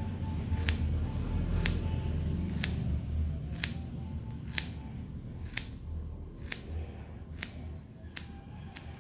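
Hairdressing scissors snipping through a held section of wet hair, about ten short snips at roughly one a second, cutting a straight guideline at the front.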